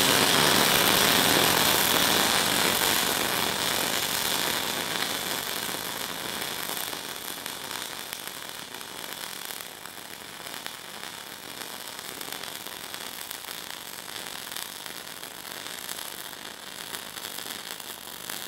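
Welding arc from a Decapower SYNMIG-200 multiprocess welder crackling steadily as a bead is laid, loudest in the first few seconds and then settling lower.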